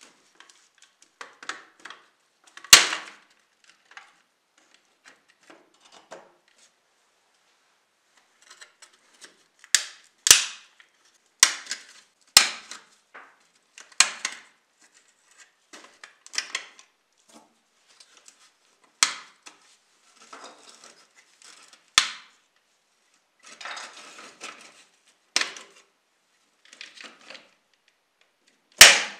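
Parts of a rusty die-cast model car clicking and knocking as it is taken apart by hand: a series of sharp snaps and clacks with pauses between, the loudest about three seconds in and another near the end.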